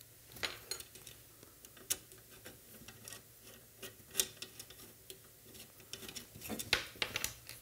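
Light, scattered metal clicks and ticks of a hex key being fitted to a bolt head on an aluminum plate before the bolt is tightened. A cluster of slightly louder clicks comes near the end.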